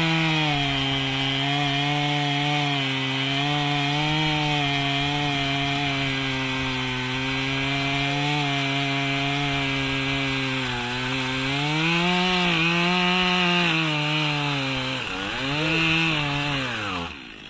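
Chainsaw running at full throttle while cutting down through a log about 15 inches across, its spikes set against the wood. The engine pitch holds steady, then sags and recovers a few times as it works under load. Near the end it drops off sharply as the cut finishes.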